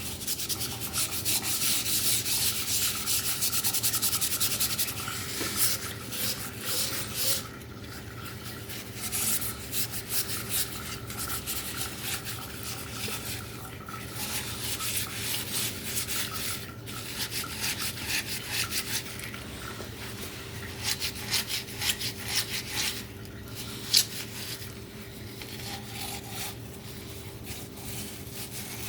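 Abrasive scrubbing or sanding on a hard surface, in irregular scratchy strokes that are heaviest in the first few seconds and stop and start, with one sharp click near the end. A faint steady hum runs underneath.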